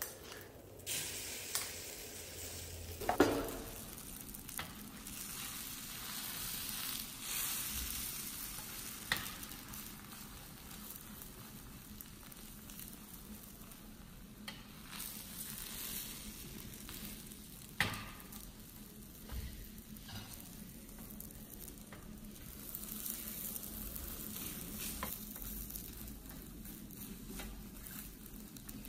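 Beaten egg sizzling as a rolled omelette fries in a nonstick pan, with a steady hiss throughout. A silicone spatula knocks and scrapes against the pan now and then, most sharply about three seconds in.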